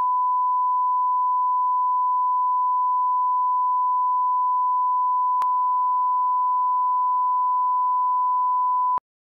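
Broadcast line-up tone: a steady pure 1 kHz test tone played with colour bars at the head of a tape master. It holds at one pitch and level, with a faint click about halfway, and cuts off suddenly near the end.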